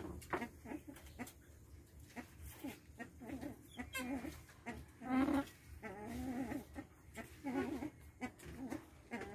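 Grey-headed swamphens calling: repeated short nasal honking calls from several birds, the loudest about five seconds in.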